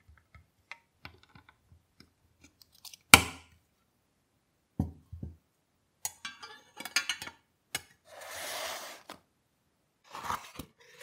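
Small toy parts handled on a towel-covered table: a sharp click about three seconds in, likely the red plastic seat snapping onto the toy's white body, then a knock, light clattering, a brief sliding scrape, and more handling near the end.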